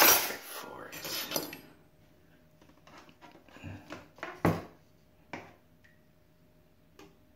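Metal cutlery clattering against a hard basin: a loud clatter at the start and another about a second later, then a few lighter clinks.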